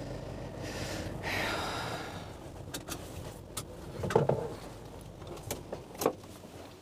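Cabin noise inside a van: a rising and falling scraping rush about a second in, then a series of knocks and clicks, the loudest about four seconds in.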